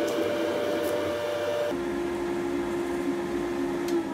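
Steady motor-and-blower whir of forge-shop machinery. A little under two seconds in, its hum shifts abruptly to a different pitch. A few faint clicks sound over it.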